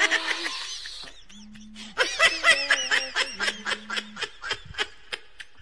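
Music fades out in the first second. From about two seconds in comes rapid laughter in quick bursts, about five a second, lasting some three seconds.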